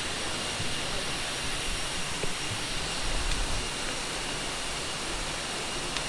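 Steady rushing of a waterfall and moving water, an even hiss that does not change.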